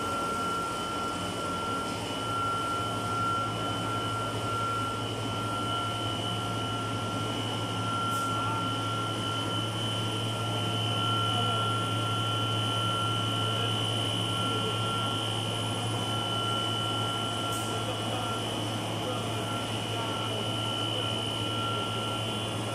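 Machinery of a nutrition-powder production line running steadily: a constant low hum with two steady high-pitched whines over it.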